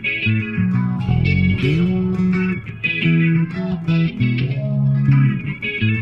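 Rock music with electric guitar and bass guitar, the bass sliding up in pitch about a second and a half in.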